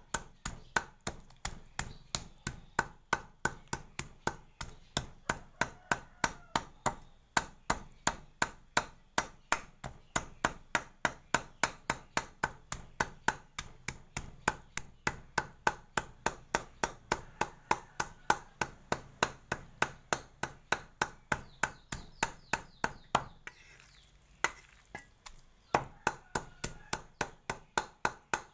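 Cleaver chopping raw frog, bones and all, on a thick round wooden chopping board, mincing it fine. The strikes are steady, about three to four a second, with a pause of about two seconds late on before the chopping resumes.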